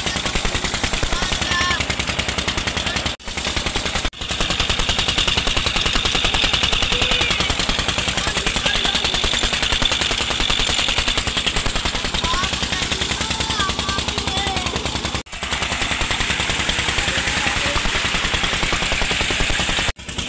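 An engine running with a rapid, even beat over gushing water, cutting out briefly about three seconds in, again a second later, and near the end.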